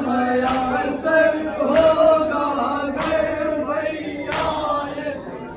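A group of men chanting a noha, a Shia lament, in unison. Sharp slaps of chest-beating (matam) keep time about every second and a quarter, four of them.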